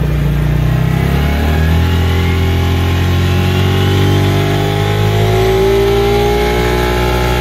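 Bighorn Power Max 30 UTV's 450cc fuel-injected engine running under way. Its note climbs steadily from about a second in as the machine speeds up, then holds near the end.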